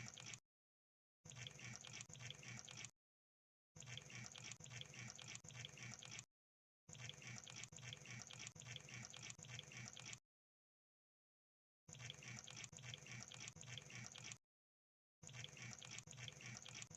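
Crab sound effect: bursts of rapid, wet-sounding clicking and crackling, each lasting one to three seconds, cut apart by gaps of dead silence.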